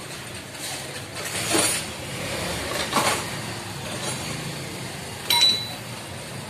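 Metal tools and parts clinking and knocking three times against an auto-rickshaw engine's clutch side during disassembly. The sharpest clink comes about five seconds in and rings briefly, over a steady background hum.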